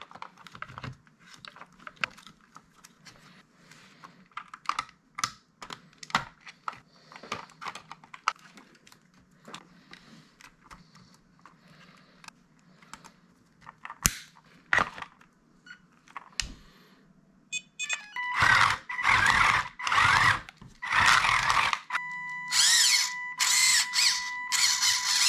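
Sped-up assembly of a small 3D-printed RC tracked robot: light scattered clicks and taps of plastic parts and small screws being handled. About three quarters of the way in come several loud whirring bursts, and near the end a steady high electronic beep sounds under them.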